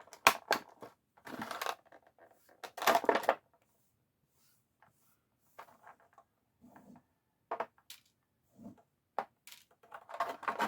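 Plastic toy packaging being handled: irregular crinkles, snaps and clicks as the plastic strings holding the figure in its tray are cut and pulled free. The sounds are busiest in the first few seconds, then give way to a few scattered light clicks.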